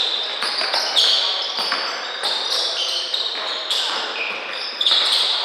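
Indoor basketball game: sneakers squeaking in short high bursts on the hardwood court, with a basketball bouncing a few times, echoing in the gym.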